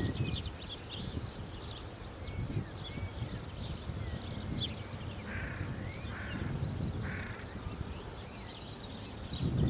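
Wild songbirds chirping and singing, many short high notes throughout, with three short harsh calls from another bird a little past the middle, over a low steady rumble.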